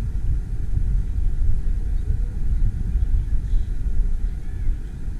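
Loud, uneven low rumble, with faint short high calls now and then.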